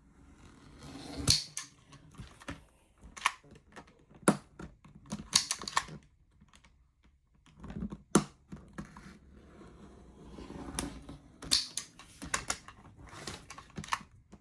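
Craft blade cutting around a print mounted on corrugated plastic board: irregular sharp clicks and short scratchy strokes, with a pause of about a second and a half midway.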